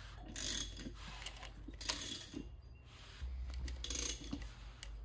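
Freshly assembled BMW M50 short block being turned over by hand, the crank rotating the new Wiseco pistons up and down their bores. The mechanical clicking and rubbing comes in irregular bursts as it is turned.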